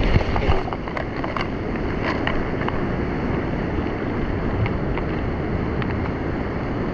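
Rough surf washing over a rocky reef, with wind on the microphone: a steady rushing. A few light clicks come from lures being handled in a plastic tackle box.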